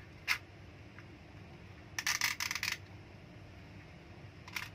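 Plastic car phone holder being handled, its gripping arms pulled open with clicking. There is a single click just after the start, a quick rattling run of clicks about two seconds in, the loudest part, and a few more clicks near the end.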